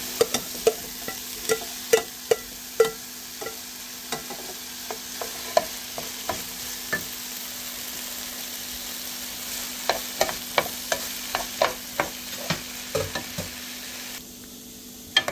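Diced cooked nopales sizzling in a pan with fried onion as a wooden spoon stirs them, knocking against the pan in irregular clicks. The clicks are bunched just after the nopales go in and again later in the stirring.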